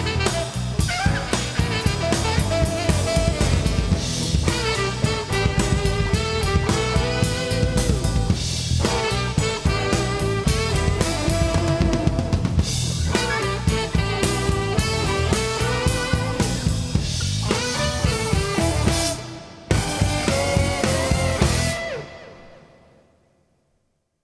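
Rock band playing an instrumental passage live, with a busy drum kit out front over bass and sustained pitched instruments. The music drops out briefly near the end, comes back, then stops about two seconds before the end and fades to silence.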